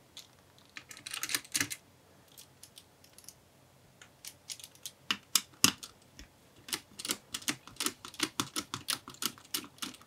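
Small Phillips screwdriver turning out the screws that hold a laptop's cooling fan: light, quick clicks and ticks of the bit on the screw. There is a short cluster about a second in, then a steady run of rapid clicks from about four seconds in.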